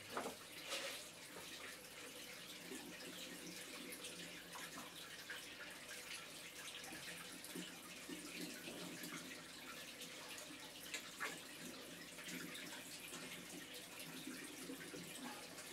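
Faint steady trickling of a reef aquarium's circulating water, with a few louder splashes or drips just after the start and about eleven seconds in.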